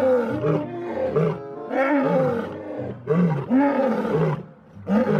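Lion roaring, a run of roars about one a second, each rising and then falling in pitch.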